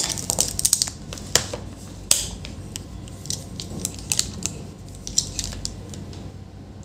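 Irregular small clicks and short scratchy scrapes, denser at first and thinning out toward the end: multimeter probes and tools being handled on a laptop circuit board while setting up a voltage check.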